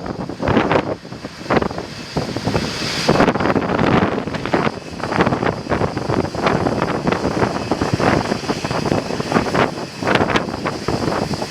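Strong gusty wind buffeting the microphone in irregular thumps and rushes, with a faint steady high whine underneath.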